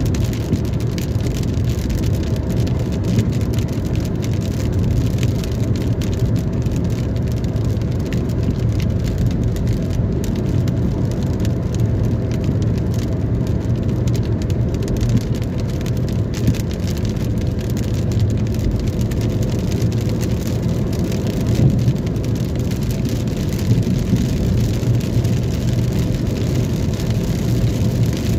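Steady rain falling, over a constant low rumble from a vehicle.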